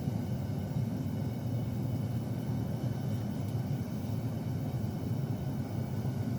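Forge running with a steady low rumble as the blade is brought up to heat.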